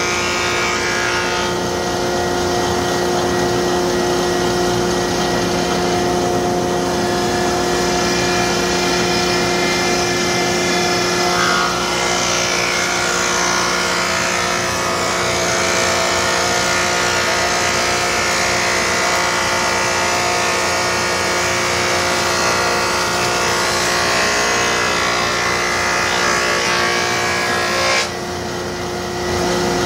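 Delta thickness planer running with boards feeding through the cutterhead: a steady, loud machine sound with a hum of several held tones and a hiss of cutting. Near the end the cutting noise drops away for about a second and a half, then picks up again.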